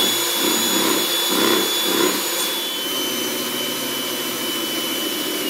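Electric mixer running at speed, whisking eggs and caster sugar for a sponge, a steady loud motor noise with a high whine. Near the end the whine starts to fall as the motor is switched off and spins down.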